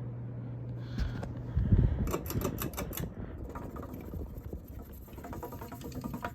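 Hunter alcove ceiling fan humming on its high setting. About a second in there is a knock, the hum stops, and a run of quick clicks and rattles follows.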